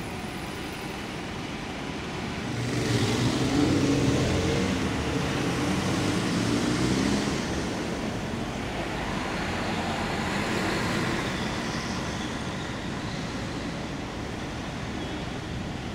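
Busy city road traffic: a double-decker bus's engine passes close, loudest for a few seconds from about three seconds in, then cars go by over a steady traffic hum.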